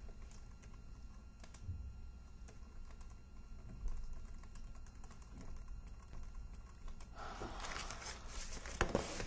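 Typing on a laptop keyboard: light, irregular key clicks. About seven seconds in, a louder rustling starts, with a few sharp knocks near the end.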